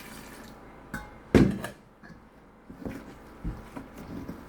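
Kitchen vessels and utensils knocking against a hard surface: a light click, then one loud sharp clatter about a second and a half in, followed by a few soft knocks.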